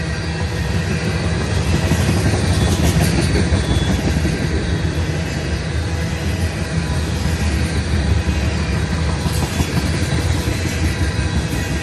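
Freight train of ethanol tank cars rolling past, steel wheels on the rails making a steady rumble.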